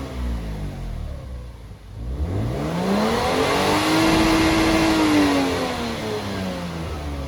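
Lexus IS200's straight-six exhaust through a Kakimoto Hyper Full Mega N1 +Rev muffler and straight centre pipe, revved once: the note settles low, climbs about two seconds in, holds for a moment, then drops back near the end.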